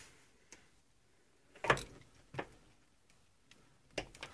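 A handful of short, sharp clicks and knocks against a quiet background, the loudest about two seconds in and a pair near the end. They come from handling a metal extension bar wound with braided fishing line against the car's roof frame while cutting the windshield's urethane at the corner.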